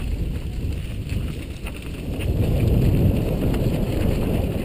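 Mountain bike rattling and knocking over rocks on a fast descent, heard through a helmet-mounted camera with wind buffeting its microphone: a steady low rumble with scattered sharp clicks and clunks.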